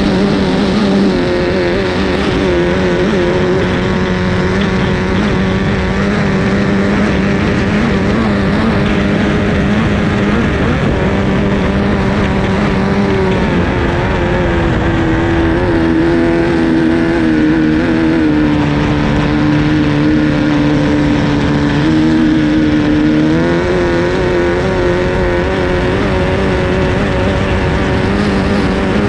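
Formula 2500 hydroplane's 2.5-litre racing outboard engine running hard, heard onboard with wind and hull noise. About halfway through the engine note drops lower for some eight seconds as the boat works around a turn buoy, then climbs back up to full speed.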